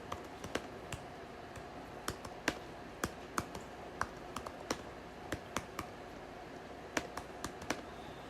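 Typing on a computer keyboard: irregular, light keystrokes, one to three a second, over a faint steady hum.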